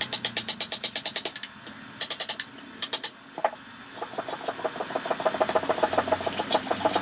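Steel hand chisel scraping over the wood of a carved toy car in rapid short strokes, about ten a second, with a pause in the middle broken by two brief scrapes. A steadier run of quick strokes starts again about four seconds in.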